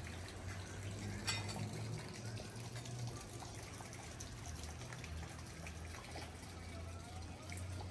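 Steady sound of running water, with a low hum beneath it and a single sharp knock a little over a second in.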